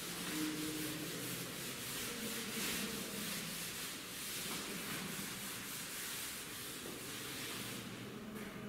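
A chalkboard duster wiping chalk off a chalkboard in quick, repeated rubbing strokes, which stop near the end.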